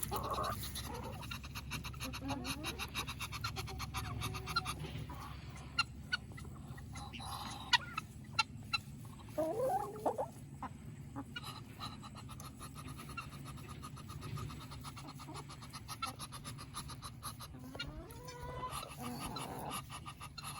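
Backyard chickens clucking and calling now and then, a few short calls near the start, about halfway through and near the end. There are several sharp taps between them, over a steady low hum.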